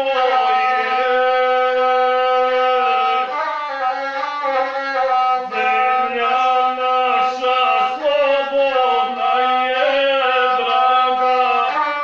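A gusle, the single-string bowed folk fiddle, being bowed while the player sings along with it in long held, slightly wavering notes.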